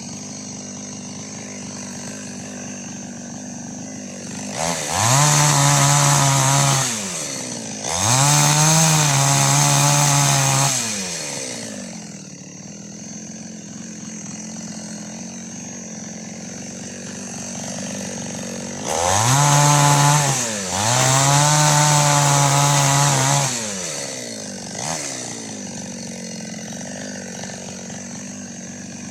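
Two-stroke Preco chainsaw with an 18-inch bar idling steadily, revved up to full throttle four times in two pairs. Each burst lasts two to three seconds and drops back to idle.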